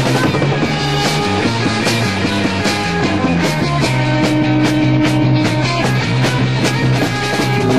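Psychedelic rock song played from a vinyl LP, with a steady drum beat under held guitar and keyboard-like notes.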